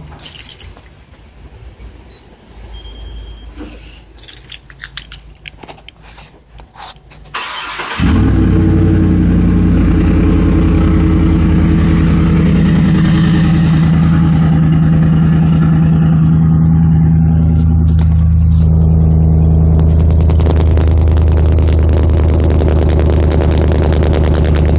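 A 2011 GMC Sierra's 6.2 L V8 with the cat-back exhaust removed, exhaling through the stock manifolds and a three-catalytic-converter Y-pipe. After a few quiet clicks the starter cranks briefly, the engine catches about eight seconds in, and it runs at a loud, steady idle.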